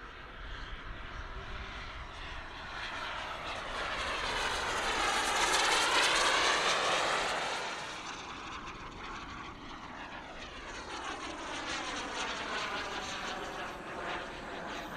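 Model turbine engine of a large-scale radio-controlled jet flying past: a steady jet rush with a sweeping, phasing sound. It swells to its loudest about halfway through, fades, then builds again toward the end.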